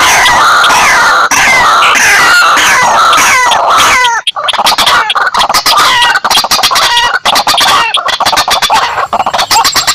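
Calls of white-breasted waterhens and slaty-breasted rails mixed together, loud and continuous: a rapid series of harsh repeated notes, each dropping in pitch. After a brief break about four seconds in, the calls turn to a fast run of sharp clicking notes.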